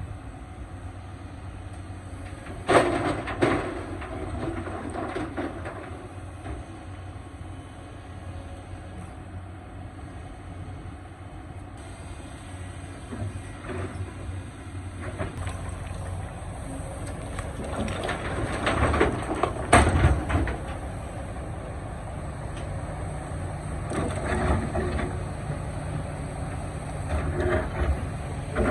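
Excavator's diesel engine running steadily under load, with loud metallic clanks and crunching from the working machine, sharpest about three seconds in and again near twenty seconds in.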